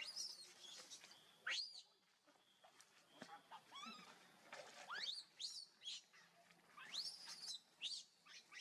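Infant macaque crying: repeated thin, high-pitched squeals, each rising and then falling in pitch, with short gaps between them.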